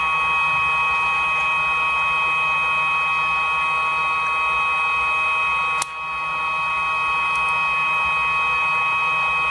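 A steady high-pitched electrical whine made of two pure tones over a hiss, broken once by a sharp click and a brief drop in level about six seconds in.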